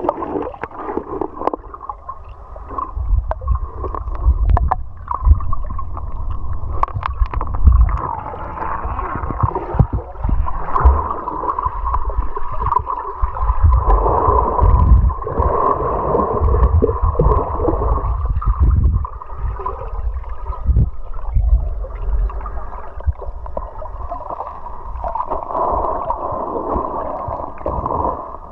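Muffled rushing and gurgling of river water heard underwater, with irregular low thuds and knocks throughout.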